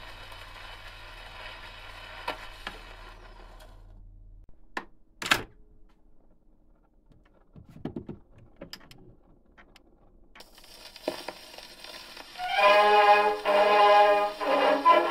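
Shellac 78 rpm record on a gramophone: surface hiss after the music has stopped, then a few sharp knocks and clicks of the machine being handled. Fresh surface hiss follows, and about twelve seconds in the record starts again with a military brass band.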